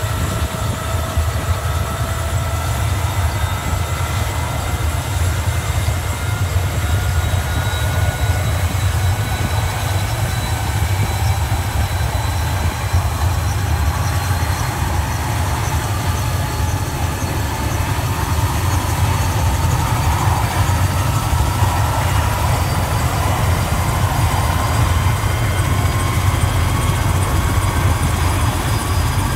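Helicopter running on the ground before takeoff: a steady low rotor and engine drone under a turbine whine that rises slowly in pitch, growing a little louder toward the end.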